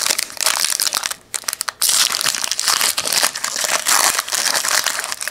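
Wrapper of a trading card pack being torn open and crinkled by hand, a loud crackling with a short pause just over a second in.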